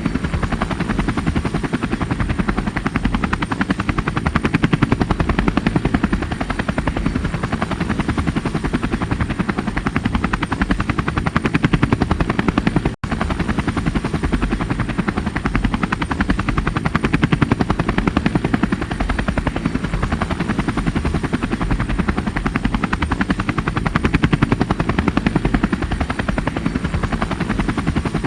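Helicopter rotor blades chopping steadily, a rapid, even beating that is strongest in the low range, with a faint steady high whine over it. The sound cuts out for a split second about halfway through, then carries on unchanged.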